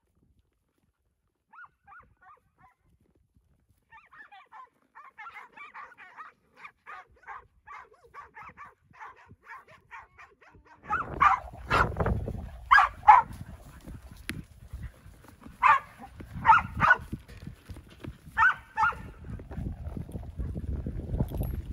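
Ranch dogs barking as they work cattle. First comes a faint run of quick barks, about two a second. From about halfway there are louder barks in twos and threes over a low rumbling noise.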